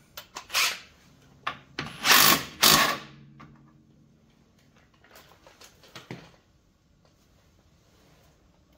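Impact wrench run in three short bursts, the last two the loudest and about two seconds in, tightening a lower bolt on the front suspension; faint tool clicks follow.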